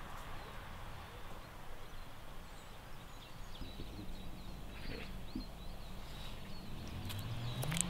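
Outdoor ambience: a steady low rumble of background noise with faint bird chirps. Near the end a few sharp clicks and a low hum that rises in pitch.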